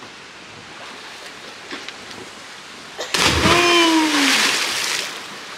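A person jumping off a cliff into a river pool: a sudden loud splash about three seconds in that hisses on for nearly two seconds, with a shout falling in pitch over it. Flowing water runs quietly underneath.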